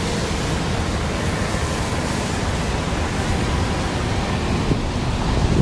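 Steady rushing noise of a rainy city street, wet-road traffic and rain hiss, with wind buffeting the microphone.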